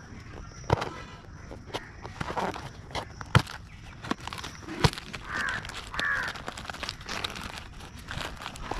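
Thin cardboard carton being opened by hand: the perforated tab pushed in and the lid torn open, with sharp clicks and snaps of the card. A bird calls twice about halfway through.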